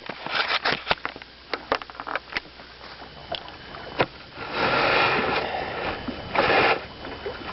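Taps, knocks and scrapes of a walleye being handled and laid on a measuring board in a boat, followed by two bursts of rushing noise about halfway through and near the end.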